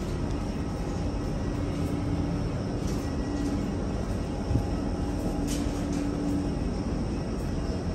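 Steady drone of aircraft and ground machinery on an airport apron, heard through the glass walls of a jet bridge, with a steady low hum. There is a single short thump about four and a half seconds in.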